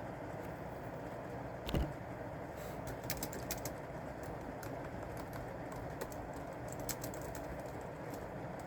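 Computer keyboard typing in short, scattered runs of keystrokes, with pauses between. A single dull thump comes just under two seconds in, over a steady background hiss.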